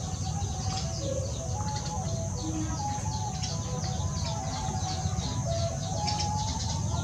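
Small birds chirping rapidly and continuously over a steady low rumble.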